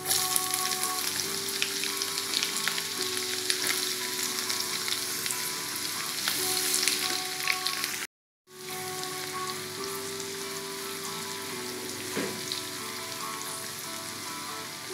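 Food sizzling and crackling as it fries in hot oil in a pan, over soft background music. The sound drops out completely for a split second about eight seconds in, then the frying and music resume.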